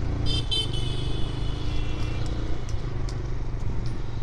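Steady motorcycle engine and road rumble while riding, with a high-pitched vehicle horn honking twice briefly about a quarter of a second in and then held for nearly two seconds.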